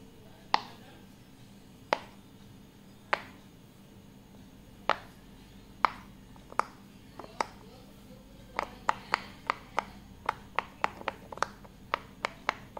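Bubbles of a silicone pop-it fidget toy pressed in with the fingertips, each giving a short, sharp pop. The pops come about once a second at first, then quicken to about three a second from about two-thirds of the way in.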